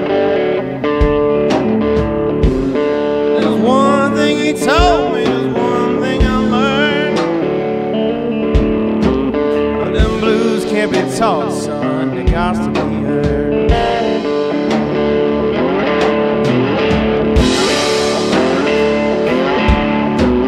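Background music: guitar over a steady drum beat, with a singing voice.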